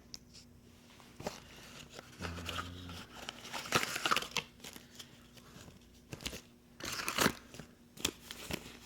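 Rustling and crinkling of packaging being handled, with scattered small clicks and knocks, loudest in two stretches of a second or two each.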